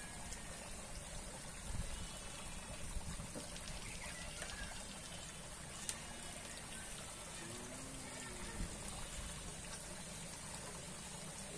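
Steady outdoor background noise with a thin high-pitched hiss, faint distant voices and a few soft clicks.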